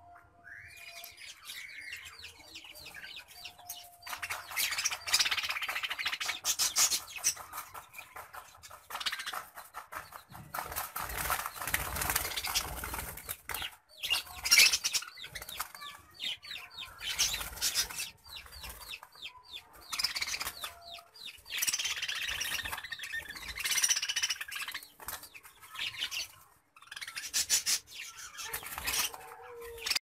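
A flock of caged budgerigars chattering and chirping, in loud bursts with short lulls between.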